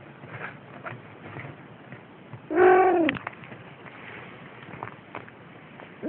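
A Siamese cat meows once, a short call that rises and then falls in pitch, over faint rustling as kittens wrestle on bedding.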